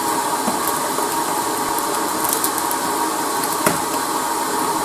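Hot air rework station running, its blower giving a steady, even hiss. A single sharp click sounds about three and a half seconds in.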